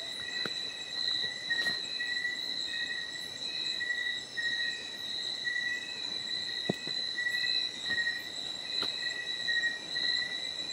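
Night insects such as crickets chirping: a continuous high trill, with a second, lower chirp pulsing about twice a second. A few faint clicks are scattered through it.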